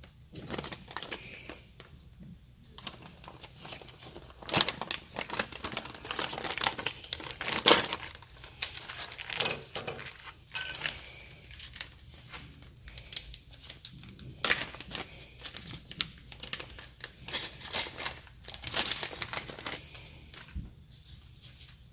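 Plastic packaging crinkling and crackling in irregular bursts as hands handle and unwrap new parts, with a few sharper tearing sounds.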